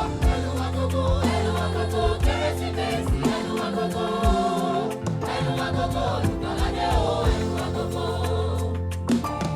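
Gospel choir singing with a live band: voices in harmony over a steady bass line and regular drum beats.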